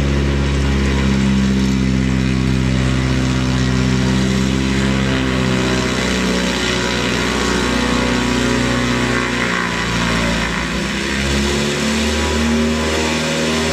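Light bush plane's piston engine and propeller running at taxi power as the plane turns on a gravel bar, with a steady low engine note that shifts briefly about ten seconds in.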